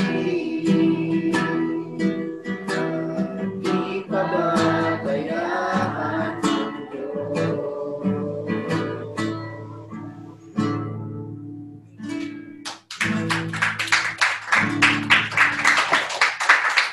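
A Tagalog worship song sung to a strummed acoustic guitar, fading out about twelve seconds in. Then a quick run of hand clapping.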